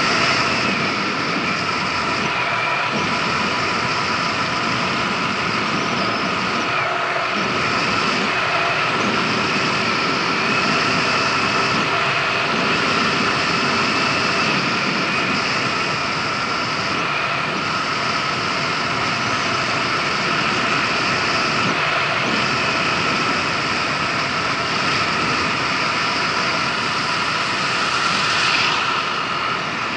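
Kymco Agility City 125 scooter's single-cylinder engine running at a steady cruising speed, with a steady whine and wind and road noise on the helmet-mounted action camera. Near the end an oncoming tractor passes, and the sound briefly swells.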